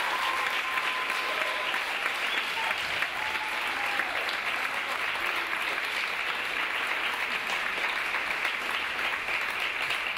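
Audience applauding steadily, with a few faint voices over it in the first few seconds.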